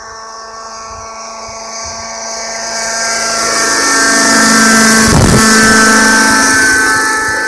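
Radio-controlled Thunder Tiger Raptor 50 helicopter with a Bell 206 LongRanger scale body, its nitro engine and rotors whining steadily with a low rotor chop beneath. It flies in and passes low overhead, growing louder to a peak about five seconds in, then fading slightly.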